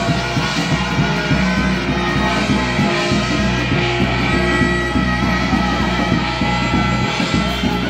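Live Korean shamanic gut music: ringing metal percussion over a steady drum beat, played without a break.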